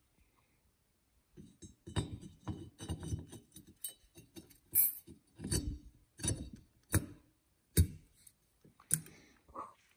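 Metal turbocharger parts being handled on a workbench: an irregular string of light metallic clicks, taps and clinks, starting about a second and a half in.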